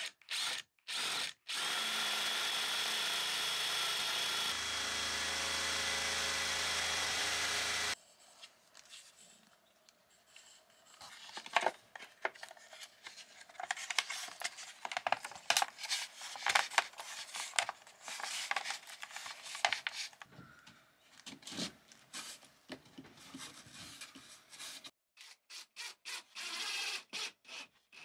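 Cordless power drill turning a spade bit through a pine board: a steady motor whine with a dense cutting noise, lasting about six seconds and then stopping abruptly. After that, scattered light clicks, knocks and scrapes of hands fitting a control panel against wood cladding.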